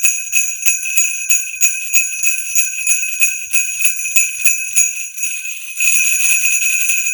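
LP CP373 12-bell sleigh bells shaken in a steady beat, about three jingles a second. About six seconds in they change to a continuous shake, a sustained jingle.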